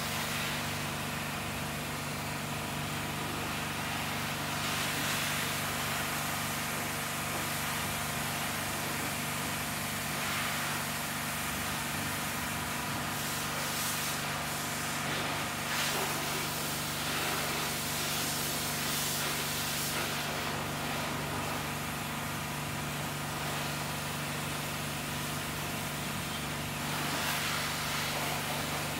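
Pressure washer running with a steady motor hum, its water jet hissing onto a car's soapy body in spells, the longest from about 13 to 20 seconds in and again near the end.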